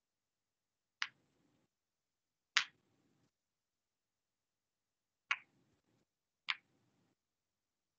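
Four single sharp clicks, spaced a second or more apart, with dead silence between them.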